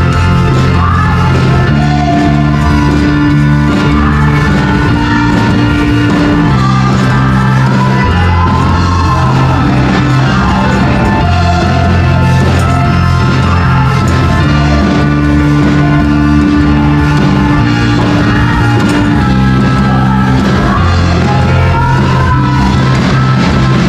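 Loud live praise-and-worship music: a band plays under a steady bass line while a group of women sing the melody into microphones.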